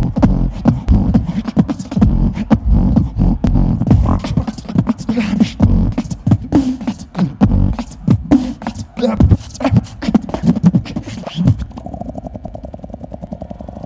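Solo beatboxing into a handheld microphone: fast kick, snare and click patterns over deep bass. About twelve seconds in it turns into a fast, even buzzing roll.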